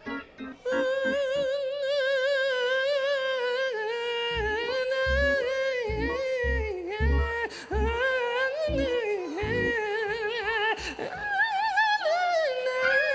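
Gospel singing: a voice holding high, wordless notes with heavy vibrato, sliding between them in melismatic runs. Low bass beats come in about four seconds in.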